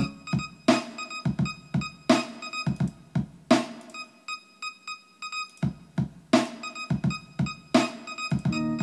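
Electronic music from rack-mounted hardware samplers: drum-machine hits with short pitched keyboard- or synth-like stabs. The beat thins out briefly in the middle.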